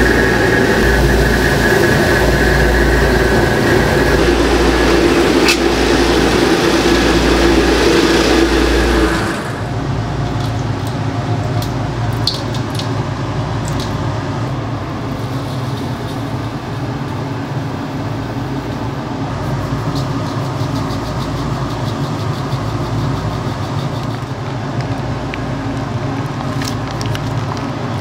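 Steady mechanical drone of commercial kitchen machinery with a low hum and a couple of steady tones; about nine seconds in it cuts to a quieter steady hum with a few small clinks.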